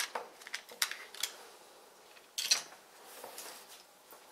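Small sharp plastic clicks and light rattles from handling a brick-built toy fire truck: several quick clicks in the first second or so, then a louder rattle a little past halfway.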